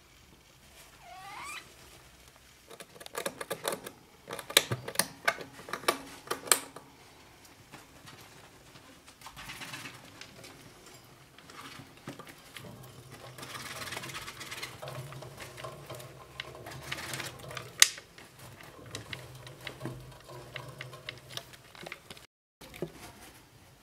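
Degu rustling in shredded paper bedding in its nest box, with scattered sharp clicks and taps, the densest clusters a few seconds in and one sharp click near the end. A short rising squeak sounds about a second in.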